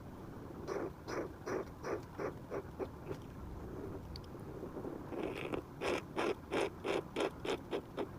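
Repeated short scraping strokes of a painting tool on a surface, about three a second, in two runs: a lighter one early, then a louder, faster one from about five seconds in.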